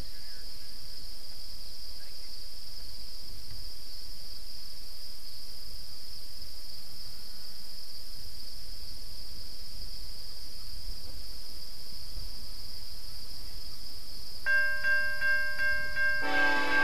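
Steady high-pitched chorus of prairie insects. Near the end a level-crossing signal starts ringing in quick repeated tones, and in the last moment a train horn begins sounding a held chord.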